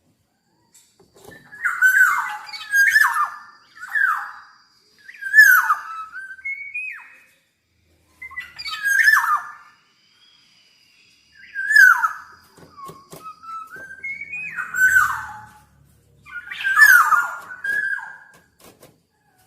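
Black-naped oriole giving harsh, downslurred calls, about eight over the stretch, in groups a second or so apart with pauses between, mixed with short rising whistled notes.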